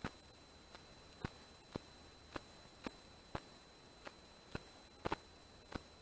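Faint sharp ticks, roughly two a second and not quite even, with a double tick about five seconds in, over a faint steady high-pitched whine.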